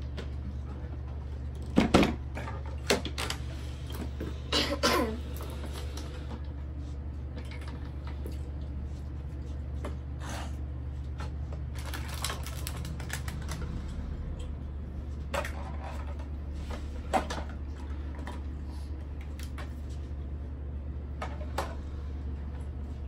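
Small plastic toy pieces clicking and knocking now and then, over a steady low hum. The knocks are busiest in the first few seconds.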